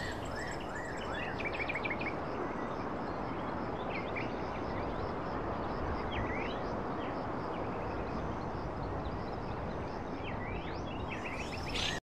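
Birds chirping in short, high calls that come in clusters, mostly in the first two seconds and near the end, over a steady background hiss.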